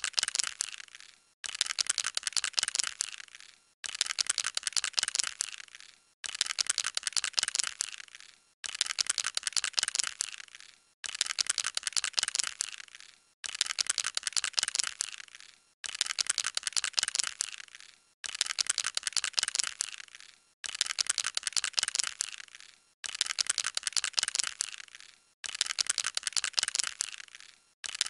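Aerosol can being shaken, its metal mixing ball rattling inside in rapid clicks. The shaking comes in bursts of about two seconds, each tailing off, with short pauses between, about a dozen times over.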